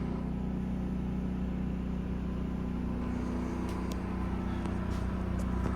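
Steady mechanical hum of the motorhome's air conditioning running, with a few faint clicks in the second half.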